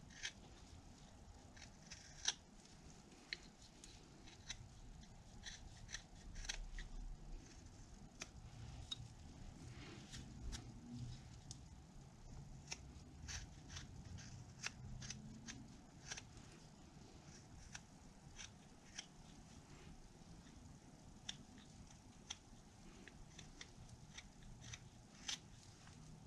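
Carving knife making small paring cuts in a basswood ball: faint, crisp slicing clicks, irregular, about one or two a second.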